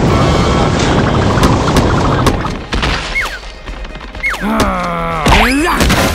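Cartoon sound effects: a water splash dousing flames, a dense rush of noise for about two and a half seconds, then short whistle-like glides and a wavering pitched cry with a thud about five seconds in.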